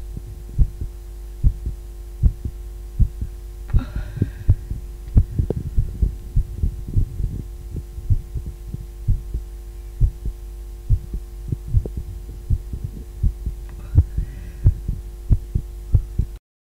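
A woman's heartbeat thumping steadily at roughly 80 beats a minute, each beat a low double knock, over a steady hum.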